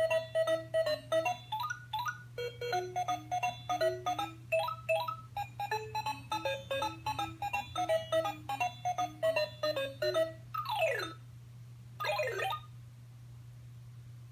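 LeapFrog Chat & Count toy cell phone playing an electronic tune from its small speaker, several short beeping notes a second. About ten seconds in the tune ends with a falling slide, followed a second later by a short swooping sound effect, and then the toy goes quiet.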